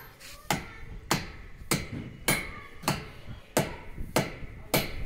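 Hammer driving a 10 mm anchor fastener through a steel base plate into a concrete roof slab. About eight hard, evenly spaced metal-on-metal blows come a little under two a second, each with a short ring.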